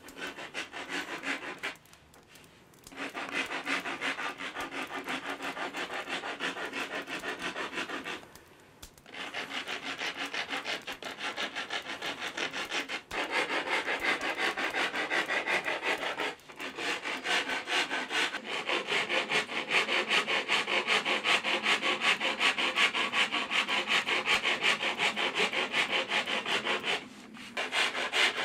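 A hand tool working a wooden bow stave in rapid, steady back-and-forth strokes, a dry rasping sound. The strokes break off in several short pauses and grow louder in the second half.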